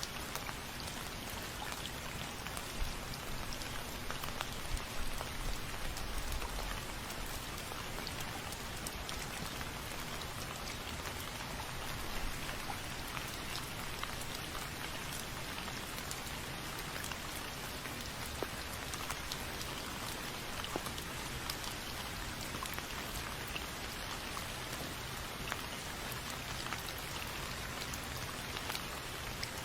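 Steady rain falling, with individual drops ticking on a surface throughout.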